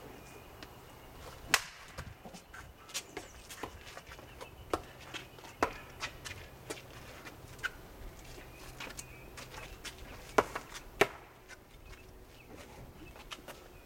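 A wooden stick and a sword knocking together in a staged fight: irregular sharp clacks, the loudest about a second and a half in and two in quick succession near the end.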